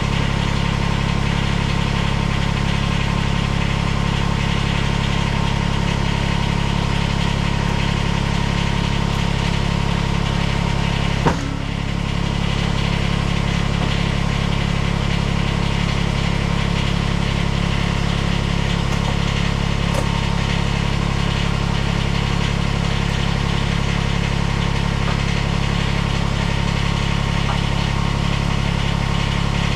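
Kubota BX compact tractor's three-cylinder diesel engine running at a steady idle, with a single sharp knock about eleven seconds in.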